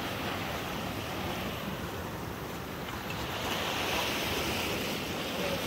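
Sea surf washing and breaking against a rocky shoreline, with wind on the microphone. The surf grows a little louder about three and a half seconds in.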